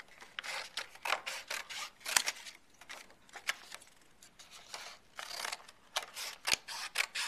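Scissors cutting through cardstock: a run of short, crisp snips in irregular clusters, with a pause around the middle.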